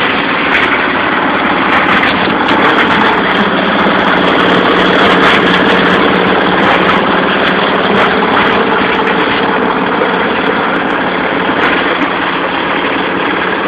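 Plastic crusher machine running steadily: a constant hum under a dense rattling noise, with scattered sharp clicks.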